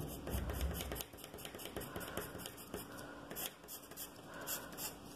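Pencil lead scratching on paper in a run of short, quick hatching strokes.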